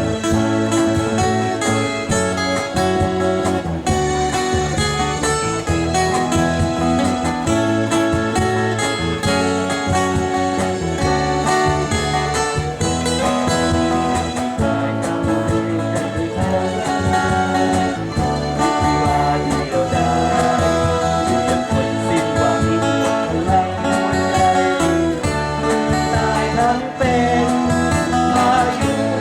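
A band playing a Thai pop song, with guitars over a steady beat.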